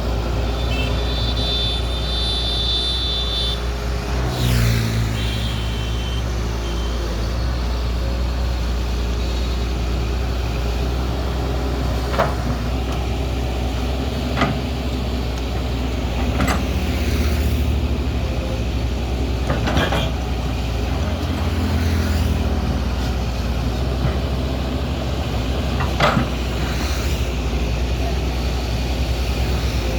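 Poclain hydraulic excavator's diesel engine running steadily, with a handful of sharp metallic clanks spread through, the loudest near the end, and a few short hisses.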